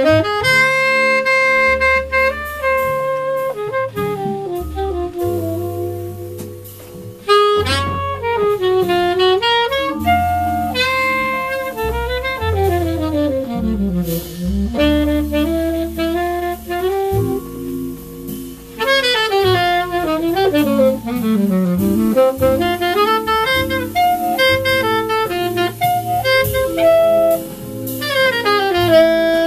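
Live small-group jazz: a tenor saxophone plays long, winding melodic phrases that sweep up and down, over a walking double bass and a four-mallet vibraphone accompaniment.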